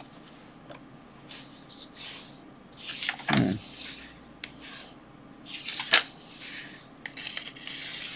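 Pages of an old book being turned by hand, the paper rustling and flapping in several separate turns, with a soft thump about three seconds in.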